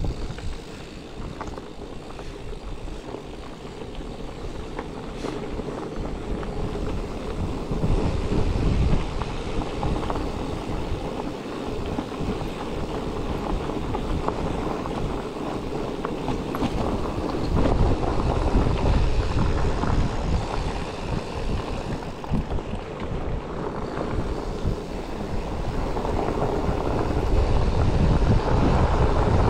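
Wind buffeting the microphone over the rumble of bike tyres on a rough trail, with many small rattles and knocks from the bike; it grows louder toward the end.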